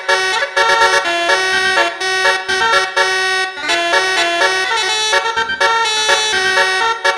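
Telolet multi-tone horn driven by an Azkduino module, playing a quick melody of short horn notes with a few longer held ones.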